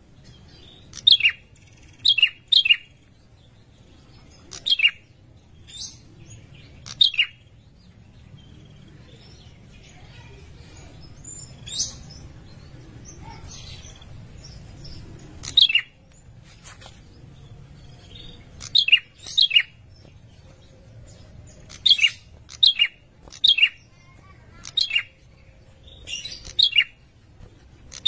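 Male ashy tailorbird calling: short, sharp chirps that sweep down in pitch, often given in quick pairs and repeated every second or two, with a lull in the middle. These are the male's breeding-season calls to a female.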